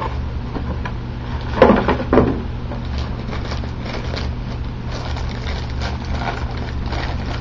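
Clear plastic bag crinkling and rustling as it is handled around an external hard drive. There are two louder handling noises about one and a half to two seconds in, over a steady low hum.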